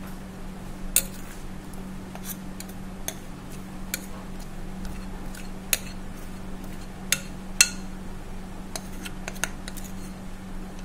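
Cake batter being poured and scraped from a mixing bowl into a heart-shaped metal cake tin: scattered sharp clinks of a utensil against the bowl and tin, two louder ones about a second in and after seven seconds, over a steady low hum.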